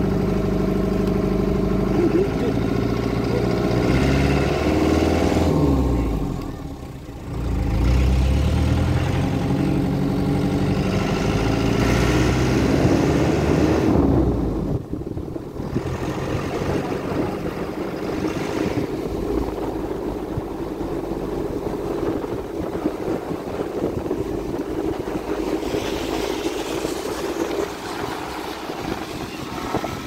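A vehicle's engine heard from on board while driving, with road noise. The engine note dips and climbs again about seven seconds in, as on a gear change; about halfway through it changes abruptly to a rougher, noisier engine-and-road sound.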